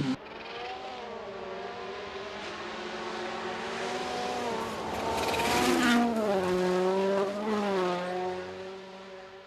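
Rally car engine revving hard as the car approaches at speed, growing louder to a rush of noise as it passes close about six seconds in. The engine note then drops in pitch and fades away.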